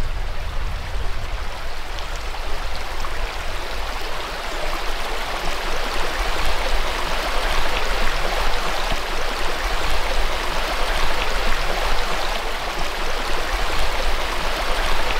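A small forest creek babbling steadily over rocks and gravel, with a steady low rumble underneath.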